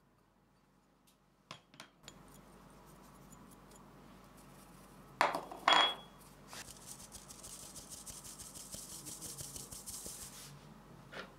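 A fine-mesh metal sieve clinks sharply twice against a glass mixing bowl, the second clink ringing briefly. Then the sieve is shaken over the bowl for about four seconds, with a rapid rhythmic rustling hiss as flour sifts through the mesh.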